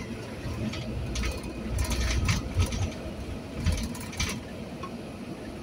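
Inside a moving vehicle's cab: a steady low engine and road rumble, with irregular clicks and rattles scattered through it.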